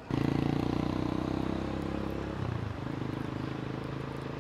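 A motor vehicle's engine running close by, starting abruptly and dropping in pitch a little over halfway through.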